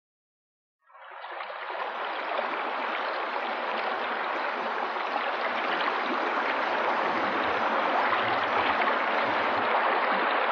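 A small stream running and splashing over rocks in a little cascade: a steady watery hiss that fades in about a second in and grows slightly louder.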